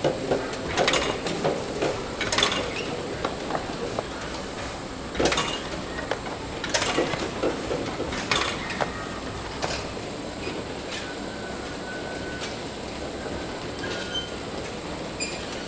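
Egg-packing conveyor running steadily with a faint high whine, and eggs clicking and clattering against the rollers and trays. Several sharp clacks come in the first half, as eggs and trays are handled.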